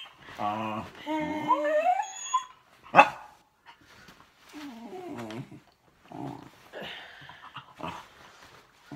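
Pet dog whining and yipping in high cries that rise in pitch, with a single sharp loud sound about three seconds in and quieter whimpers after.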